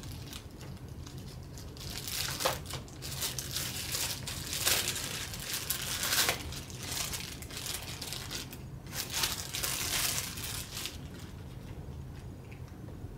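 Thin plastic bag crinkling and rustling as hands open it and handle the cable inside. It comes in irregular bouts from about two seconds in and dies away about two seconds before the end.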